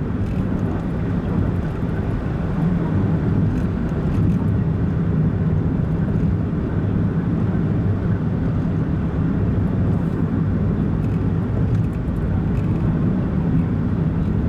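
Car driving along at a steady pace: continuous low engine and road-tyre drone.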